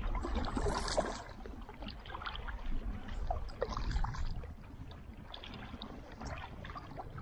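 Water splashing and dripping from a double-bladed paddle as it dips and lifts beside a small paddled boat, a few strokes in all, with a steady low wind rumble underneath.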